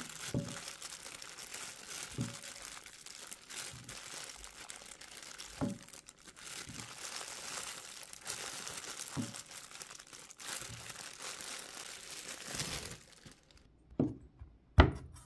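Leftover cooked chicken breast being torn apart by hand in a bowl: a steady crinkling, tearing rustle with a few small clicks. Near the end it stops, and two sharp knocks follow on a wooden cutting board.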